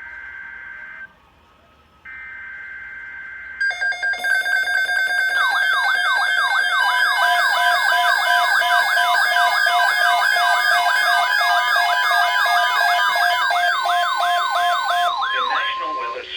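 Emergency Alert System alert audio ahead of a severe thunderstorm watch. First come two shrill buzzing bursts of SAME header data, about a second apart. Then, from about four seconds in, a loud alert signal plays: a warbling, siren-like sweep repeating about three times a second over steady tones, which cuts off near the end.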